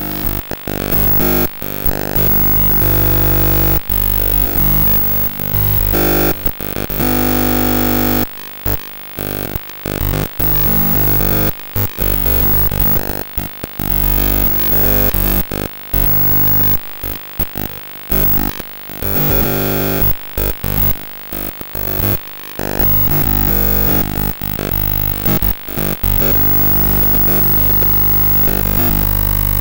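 Glitchy electronic buzzing from a circuit-bent Blaupunkt DVM-1000 video mixer, its video signal heard as audio. Steady buzzing tones with many overtones cut out and switch abruptly many times, in a stuttering, noisy pattern.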